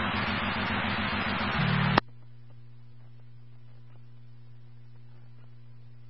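Police dispatch radio hiss as a transmission ends, with a short buzz just before it cuts off abruptly about two seconds in. After the cutoff only a steady low electrical hum remains.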